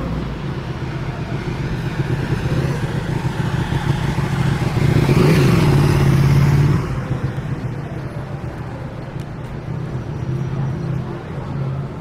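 City street traffic: a motor vehicle's engine runs under everything, and one passes close, loudest about five to seven seconds in before dropping off sharply.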